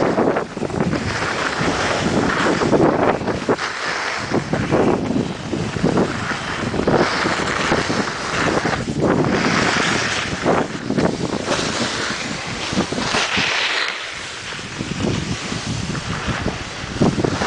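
Wind rushing over the microphone and skis hissing and scraping over packed snow during a fast descent, swelling and easing in waves with the turns.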